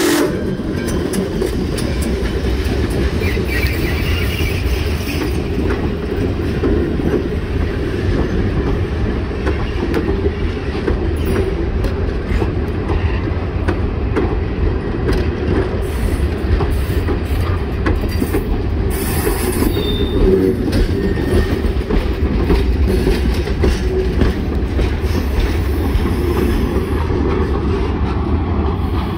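Steam-hauled heritage passenger train rolling past at low speed: steel wheels rumbling steadily and clicking over the rail joints as the coaches and caboose go by, with a brief flange squeal on the curve about two-thirds of the way through.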